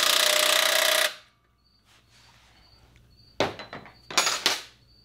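Cordless power driver runs for about a second with a dense metallic rattle, driving in the screw that fastens the winch's ground wire to its steel mounting bracket, then stops abruptly. A couple of short knocks and rustles follow later on.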